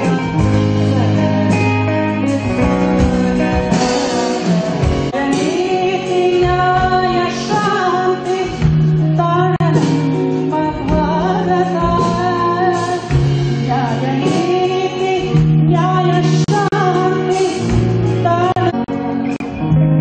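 Rock band music: electric guitar and drums under a singing melody that glides between notes, over held low bass notes.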